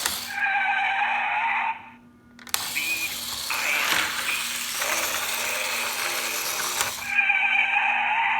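Electronic sound effects from a GeoTrax toy's small built-in speaker: a held chord of steady tones, then a hissing, rushing noise with a few clicks, and the held tones again near the end.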